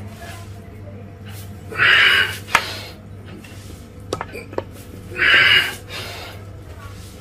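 A man's forceful breaths, twice, a few seconds apart, timed to an exercise flow between plank, cobra and downward dog, with a few light clicks and taps in between over a steady low hum.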